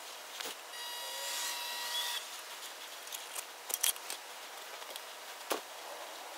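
Hand-cranked bead roller working a bead into a 3-inch steel exhaust tube: a thin, steady metallic ringing squeal for about a second and a half, then a few sharp metal clicks as the crank and rollers are worked.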